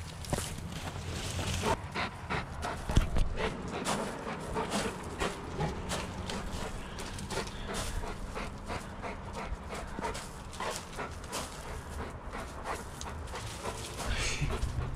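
A dog panting while it pushes through dry brush, with rapid crackling and rustling of twigs and fallen leaves throughout.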